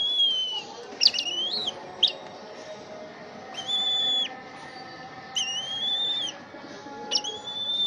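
An eagle giving a series of high, thin whistled calls, about six in all, each under a second long. Some start with a quick upward slide before holding the pitch.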